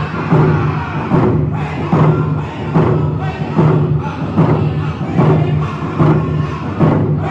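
Round dance song: a group of singers holding a low chant over hand drums struck in a steady beat, about one strike every 0.8 seconds.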